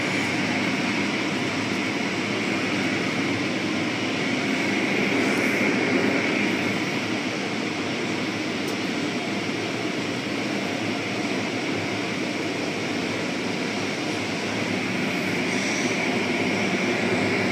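Automatic car wash's rotating cloth brushes scrubbing a vehicle amid water spray: a steady, even rushing noise.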